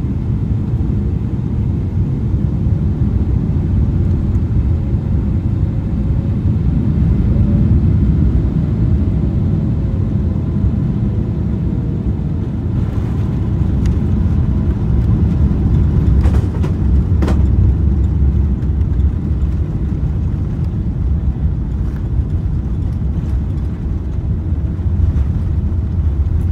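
Steady low rumble of a jet airliner heard from inside the cabin during touchdown and the landing roll. A couple of sharp knocks come about two-thirds of the way through, and the rumble grows heavier while the wheels roll on the runway.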